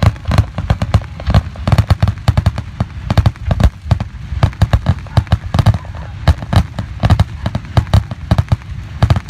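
Fireworks going off in a rapid, continuous barrage of sharp bangs, several a second: a grand finale.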